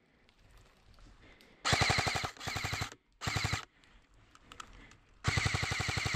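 Airsoft gun firing rapid full-auto bursts: two short bursts close together, another shortly after, then a longer burst near the end.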